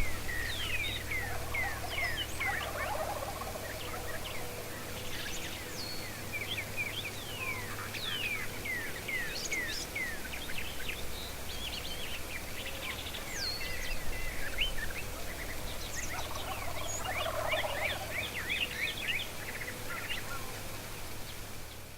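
Wild turkeys, Rio Grande subspecies, gobbling at a distance, once a couple of seconds in and again near the end. Throughout, small songbirds give many quick falling chirps over a steady low hum.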